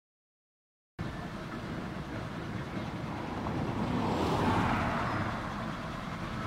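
Silence for about a second, then road noise: a car passes close by, its tyre and engine noise swelling to a peak midway and easing off as it drives away.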